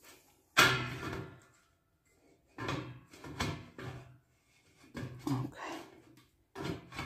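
Metal knocks and scraping as a steel pyrolytic burner tube is wedged into its seat on top of a stove: one sharp clunk about half a second in, then several groups of shorter rattling knocks.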